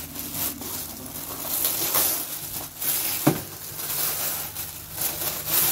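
Toy packaging rustling and crinkling as a surprise package is handled and opened, in repeated irregular bursts.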